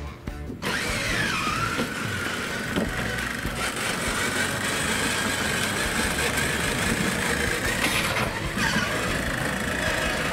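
Electric drive motors and gearboxes of a 24-volt Power Wheels ride-on monster truck whining as it drives over concrete, with tyre noise. The whine starts abruptly just under a second in, holds a steady pitch and dips briefly about eight seconds in.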